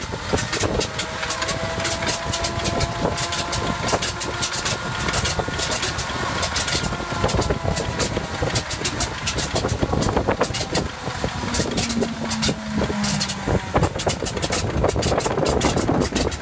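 Pratt & Whitney R-985 Wasp Junior nine-cylinder radial aircraft engine being cranked on a cold start, with a steady whine under irregular pops and bangs as cylinders fire unevenly and it tries to catch.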